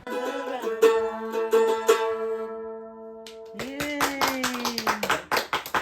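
Mandolin music: a held note rings for a few seconds, then a sliding note and a fast run of sharp strokes from a little past the middle.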